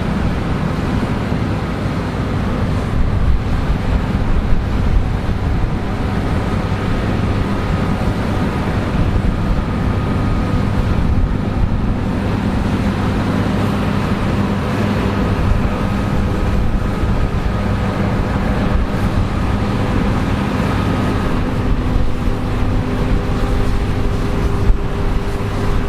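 Combine harvester running steadily while harvesting wheat: a continuous engine and machinery drone with a few faint steady tones over it.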